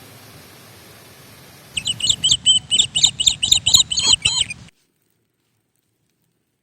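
A bird chirping rapidly and loudly close by, about four high chirps a second for some three seconds over a steady hiss, then the sound cuts off dead.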